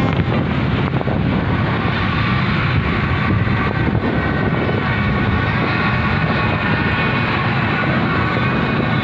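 Loud, steady din of a street celebration crowd: many motorbike engines running, with people shouting. Horns toot over it in the second half.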